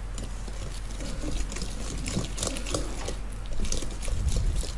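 Balloon whisk beating softened butter and sugar in a stainless steel bowl: quick, irregular scraping and tapping of the wires against the metal, with soft squishing of the butter.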